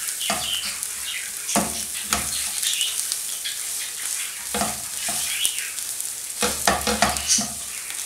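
Potatoes, onions and spices sizzling in oil in a non-stick frying pan while a slotted wooden spatula stirs and scrapes through them in irregular strokes, over a steady frying hiss. This is the spice mix being fried into potato stuffing.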